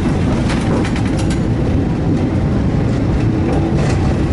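Old streetcar running along its track, heard inside the driver's cab: a steady low rumble of motors and wheels, with a few sharp clicks and rattles about half a second and a second in, and again near the end.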